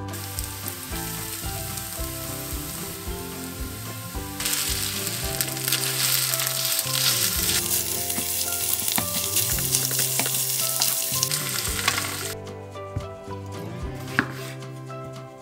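Minced pork and onion frying in a pan and being stirred with a wooden spatula, a steady sizzle that grows louder about four seconds in and cuts off suddenly about twelve seconds in. Near the end, a knife cuts through a tomato onto a wooden cutting board with a sharp tap.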